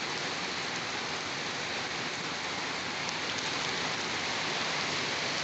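Steady rain falling and pattering on a surface, an even hiss with a few louder single drops standing out.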